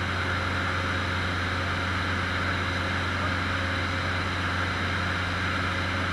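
Cessna 150's Continental O-200 four-cylinder engine and propeller running steadily in flight, heard inside the cabin as a constant low hum with a steady rushing hiss over it.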